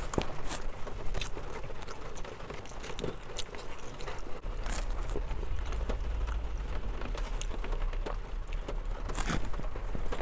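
Close-up eating sounds: chewing, with a plastic spoon clicking and scraping in a foam takeout box, over rain pattering on a car. A low rumble comes in about four seconds in.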